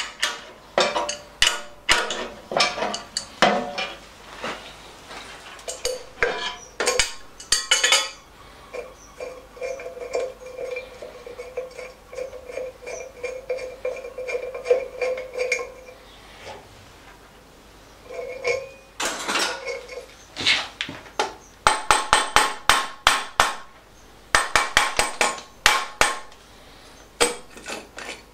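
Hand tools knocking and clinking on the metal parts of a 1937 Lister D engine being dismantled. A steady metallic ringing runs for several seconds in the middle, and a run of quick hammer taps comes in the last third.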